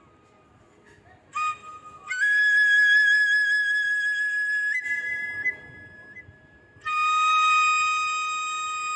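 Flute music: long, held notes with a slight waver, separated by a short quiet stretch near the middle.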